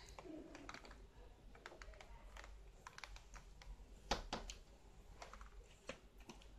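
Whiteboard being wiped by hand and eraser: faint scattered taps, knocks and rubbing on the board, the loudest a knock about four seconds in.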